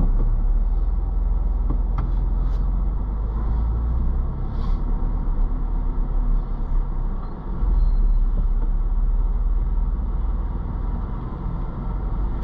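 Ford Bronco crawling along a rocky dirt trail, heard from inside the cab: a steady low engine and road rumble, with a few light knocks and rattles in the first five seconds.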